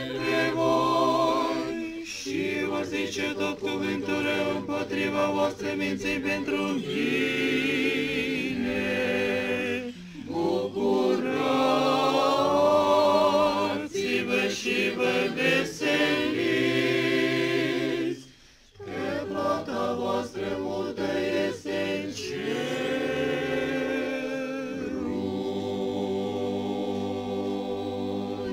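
Unaccompanied Orthodox church choir singing a liturgical hymn in several long sustained phrases, with brief breaks between them.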